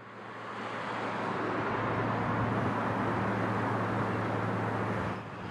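A motor vehicle running: a steady engine hum under road noise that fades in at the start and briefly drops near the end.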